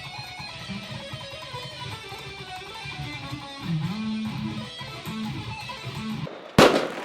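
Guitar music with a moving low bass line. Near the end the music stops and a single loud sharp hit sounds.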